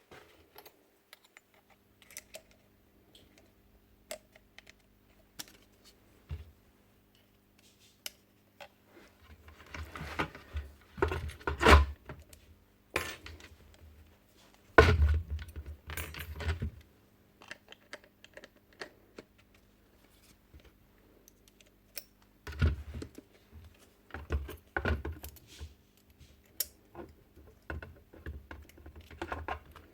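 Parts of a Makita DBN600 nail gun being handled and fitted back together by hand: scattered small clicks and metallic rattles, with louder clusters of knocks and rattling about a third of the way in, around the middle, and again later on.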